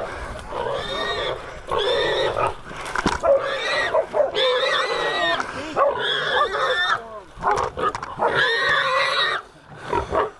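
Feral hog squealing repeatedly while catch dogs hold it down: about six long, shrill squeals of a second or so each, with short breaks between them.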